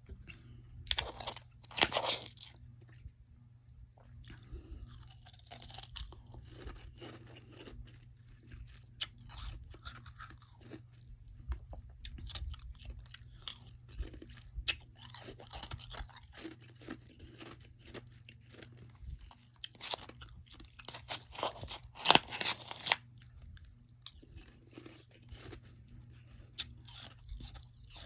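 Close-up crunching and chewing of soft freezer frost in the mouth, in clusters of quick crisp crunches with short pauses between. The loudest bites come about two seconds in and again about twenty-two seconds in, over a faint steady low hum.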